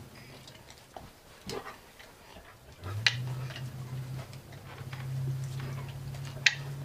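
A Beauceron puppy mouthing treats and a small odor tin held in a handler's hands: a few sharp clicks and softer ticks, the loudest about three seconds in and near the end. A low steady hum comes in about three seconds in.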